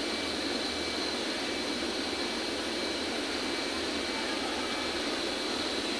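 Steady, unchanging mechanical whirring noise with a faint high whine, without pauses or strokes.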